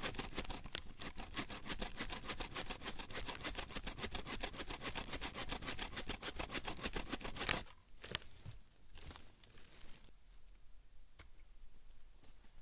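Folding hand saw cutting through a log in fast, even back-and-forth strokes, about four or five a second. The sawing stops about seven and a half seconds in with one loud sharp sound, followed by a few scattered knocks as the wood is handled.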